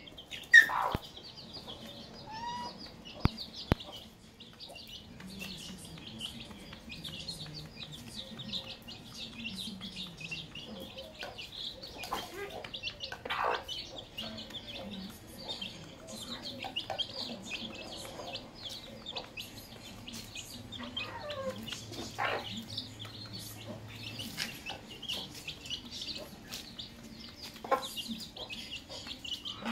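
Domestic hens clucking softly and low while their chicks peep constantly in high, rapid chirps, with a few louder calls and sharp sounds now and then.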